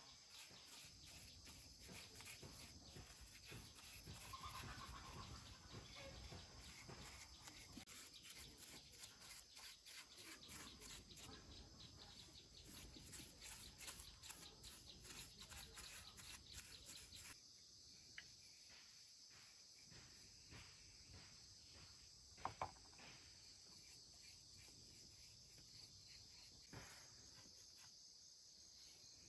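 Faint outdoor ambience of insects chirring in quick steady pulses, the background changing about two-thirds of the way through. A brief sharp double click sounds near the end.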